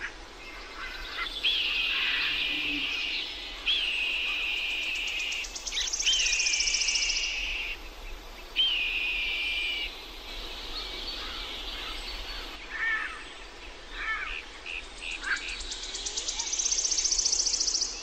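Wild birds calling. There is a run of long, held whistled notes, each opening with a quick upward flick, then scattered short chirps. A rapid, high buzzing trill swells twice, about six seconds in and again near the end.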